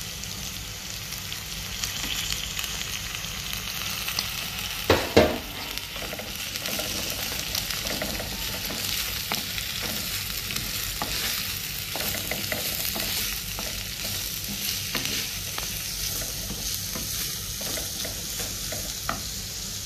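Sliced onions and shallots sizzling in hot coconut oil in a chatti while a wooden spatula stirs and scrapes them against the pot. Two loud knocks come about five seconds in.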